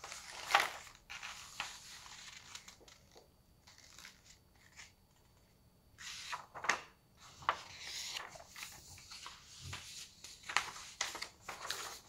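Sheets of printed paper rustling and crinkling as pages are turned and shuffled by hand, in short scattered bursts with a brief quiet spell midway.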